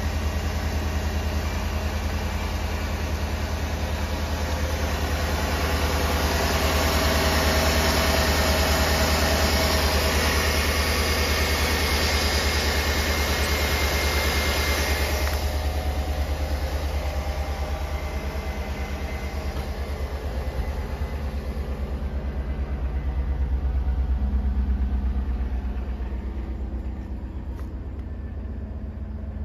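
Chevrolet Avalanche's 5.3-litre V8 idling steadily, a low even rumble. A higher hiss sits over it and cuts off suddenly about halfway through.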